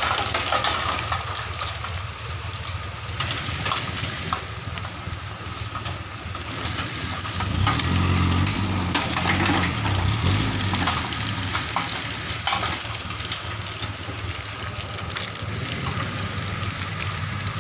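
Dump truck engine running while a load of sticky red rock slides and rattles out of the raised tipper bed in a steady gritty pour. The engine note strengthens and rises between about 8 and 11 seconds in.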